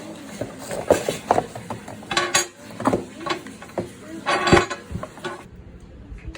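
Irregular clicks, clinks and knocks of a new Bosch GWS 060 angle grinder and its parts being handled out of the box, with two louder rattling bursts about two and four and a half seconds in. The grinder's motor is not running.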